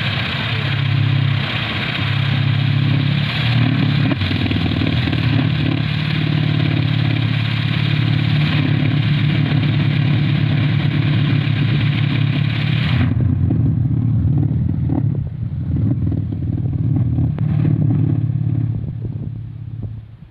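Kolecer, a Sundanese wind-spun propeller on a pole, turning in the wind with a loud, deep, wavering drone. A rushing hiss over it cuts off suddenly about two-thirds of the way through, and the drone fades at the very end.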